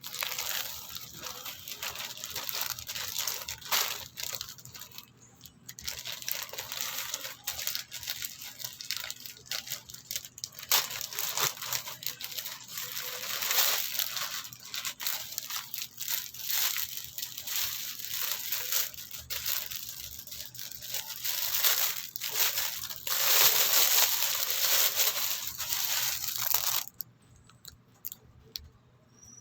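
Parcel packaging being torn open and crinkled by hand: a long stretch of rustling and tearing with sharp crackles. It is loudest just before it stops near the end.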